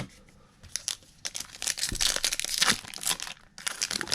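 A trading-card pack wrapper being torn open and crinkled, with a dense run of crackling that starts about a second in and eases off shortly before the end.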